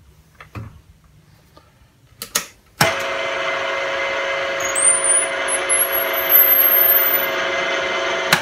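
Benchtop milling machine's spindle motor switched on with a click about three seconds in, running with a steady whine and a high whistle that rises in pitch over a few seconds, then cutting off abruptly near the end. A few light knocks come before it starts.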